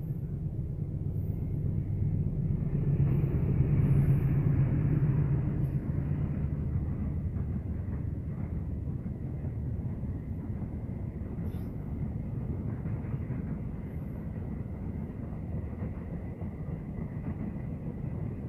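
Coaches of a long intercity passenger train rolling past on the rails: a steady rumble of wheels on track that is loudest about four seconds in, then eases a little and holds as the train moves off.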